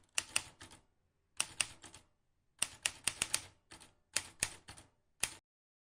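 Typewriter-style keystroke clicks in quick bursts of several strikes each, like a typing sound effect, stopping about five seconds in.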